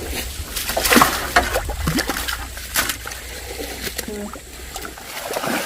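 Pond water splashing and sloshing in irregular bursts as fish are caught and handled during a pond harvest; the largest splash comes about a second in.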